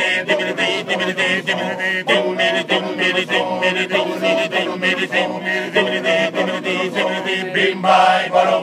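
A Sardinian men's polyphonic choir singing a cappella, the voices over a steady low held drone. The song swells to a louder final chord near the end and then stops.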